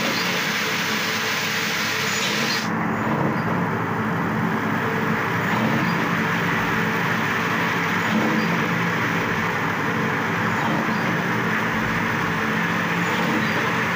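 Steady running hum of a motor-driven spindle machine cutting into rubber flip-flop soles, a continuous mechanical drone with a low steady tone under it. About three seconds in the hiss on top drops away abruptly.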